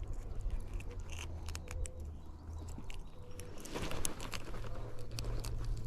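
Handling noise from unhooking a freshly caught trout: scattered small clicks and scrapes, with a short rustling burst about four seconds in, over a steady low rumble.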